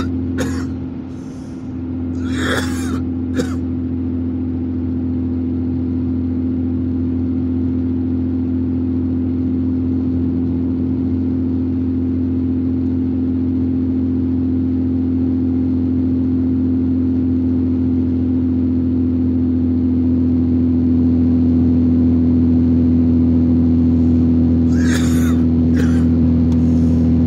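Steady engine and road drone inside a car cruising at highway speed, with a low steady hum. It slowly grows louder over the stretch. A few brief short noises come early and again near the end.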